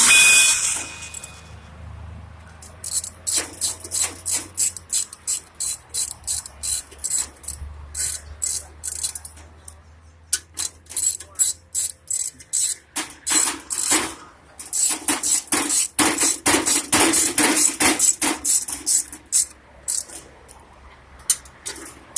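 Hammer striking sheet metal in quick runs of several blows a second, with short pauses between the runs; the blows come thickest about two-thirds of the way through.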